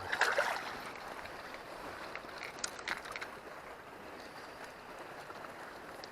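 Faint, steady rush of a flowing trout stream, with a brief disturbance in the first half second and a couple of faint clicks about three seconds in.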